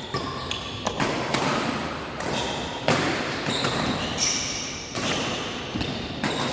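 Badminton rally: several sharp racket strikes on the shuttlecock a second or two apart, with short high shoe squeaks on the court floor in between, echoing in a sports hall.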